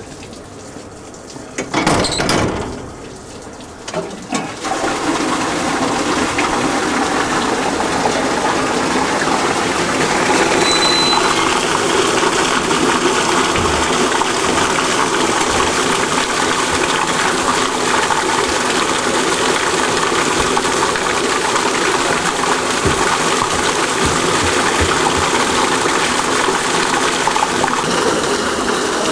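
Water gushing steadily out of the ballast tank under a car of the water-balanced Lynton & Lynmouth Cliff Railway into the track drain, the car's tank being emptied at the station. The rush starts about four seconds in, after a short loud knock about two seconds in.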